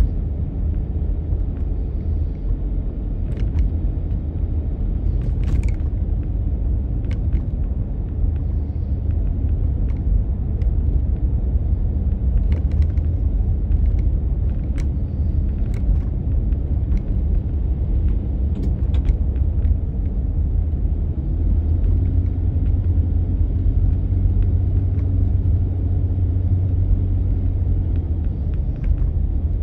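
Car driving, a steady low road-and-engine rumble, with scattered faint clicks or rattles.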